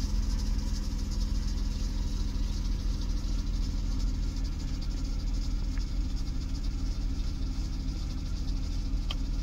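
Vehicle engine idling with a steady low rumble, under a steady high hiss.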